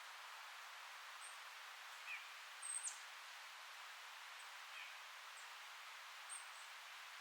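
Wind in forest leaves as a faint steady rustle, with scattered short, high bird chirps; the loudest chirp, a quick downward sweep, comes about three seconds in.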